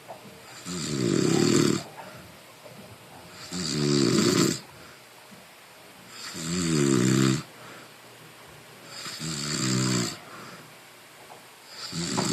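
A sleeper snoring loudly and regularly, one rattling snore about every two and a half seconds, each lasting about a second, with quieter breathing between; a new snore begins near the end.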